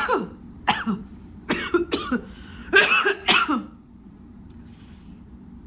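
A woman coughing about seven times in quick clusters over the first three and a half seconds, each cough falling in pitch, then stopping. The coughing comes while her mouth and lips burn from very hot wing sauce.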